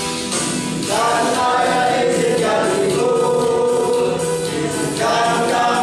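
Choir singing a march with instrumental accompaniment, the voices coming in about a second in after a short instrumental introduction.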